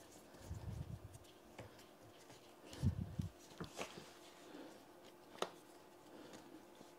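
Faint handling noise as the repair stand's clamp head is turned by hand: a few soft knocks and a couple of sharp clicks.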